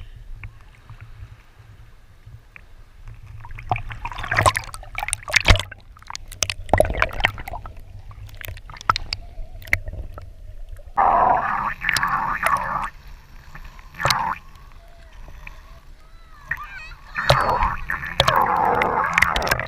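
Kayak paddles dipping and splashing in the water in bursts of quick strokes, with children's shouts and voices over them.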